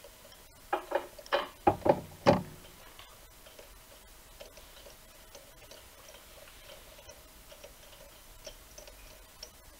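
A quick, irregular run of about six sharp metallic clicks and clinks in the first two and a half seconds, the last the loudest, from a spark plug wrench working in a plug well of the cylinder head; after that only faint ticks.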